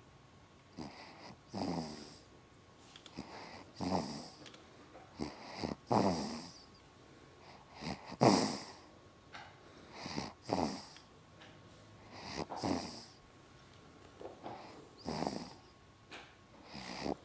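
Snoring in steady sleep: a rough, rasping snore about every two seconds, each breath in two parts.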